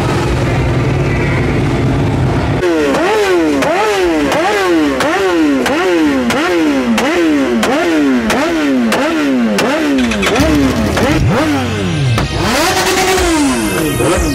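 A sportbike engine revved in repeated quick throttle blips, about two a second, after a steady low running sound at the start. Near the end the revs give way to a long rising sweep.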